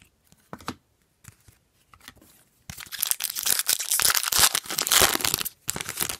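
Foil wrapper of a hockey card pack being torn open and crinkled: a dense, loud rustling that starts about two and a half seconds in and lasts about three seconds. A few faint clicks come before it.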